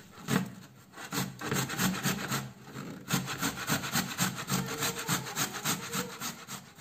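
Tomato and garlic being grated on a stainless-steel box grater into a frying pan: quick rasping strokes, about four a second, with two short pauses.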